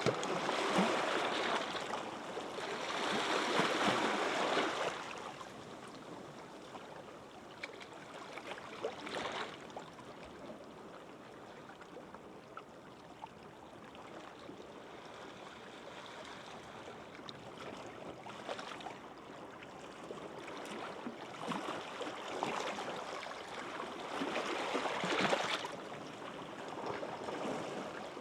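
Gentle waves washing onto a sandy beach, swelling and fading in slow surges, with a quieter stretch of hissing, crackling backwash in the middle.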